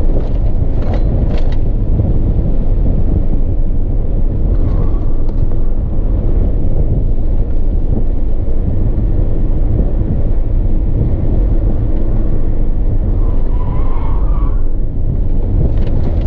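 Car running hard on a racing circuit, heard from inside the cabin: a loud, steady rumble of engine and road noise, with a brief wavering higher tone about thirteen seconds in.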